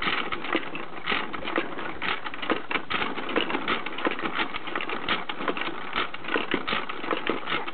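A rapid, irregular clattering rattle, many sharp clicks a second, kept up without a break.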